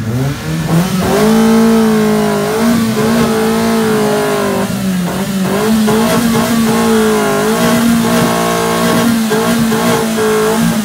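Modified car's engine revved hard and held at high revs, its pitch dipping and climbing back every second or so.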